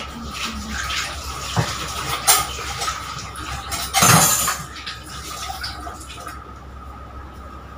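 Tap water running into a kitchen sink while dishes and utensils are washed, with clattering of pots and cutlery, loudest about four seconds in. The water stops about six seconds in.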